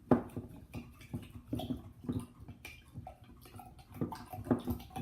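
Irregular handling noises: short knocks and clicks as things are moved about, the loudest right at the start.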